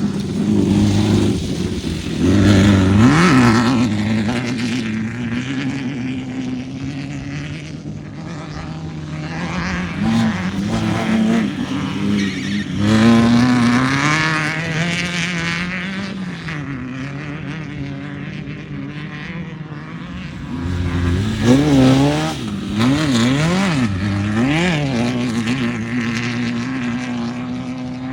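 Off-road race vehicle engines running hard and revving, the pitch rising and falling repeatedly. There is a sharp climb about halfway through and several quick up-and-down rev swings near the end.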